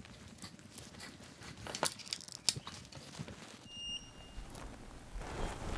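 Faint clicks and rustles of a LiPo battery pack and its leads being handled on a workbench, with a brief high electronic beep a little under four seconds in.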